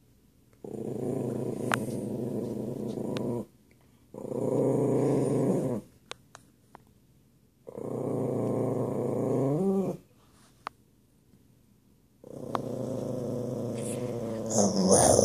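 Dog growling at its own reflection in four long growls with short pauses between, the third rising in pitch as it ends, and a louder outburst near the end.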